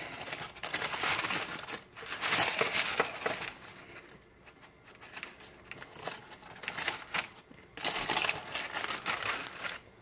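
Aluminium foil and parchment paper wrapping crinkling and rustling in bursts as a seitan loaf inside it is pulled apart by hand and fork. The loudest burst comes near the end and stops sharply.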